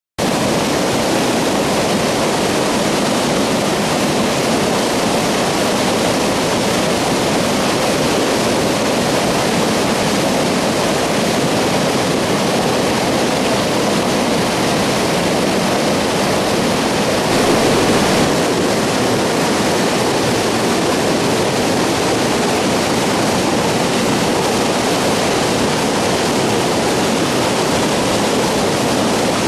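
A river in flood running fast, its water churning through broken white water with a loud, steady rush.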